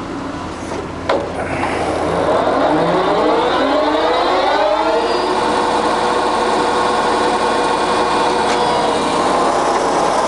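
Jessey Major 1860 centre lathe's headstock spindle and gearbox starting up with a click about a second in. It then accelerates with a rising gear whine over a few seconds and settles into running steadily at the newly selected speed.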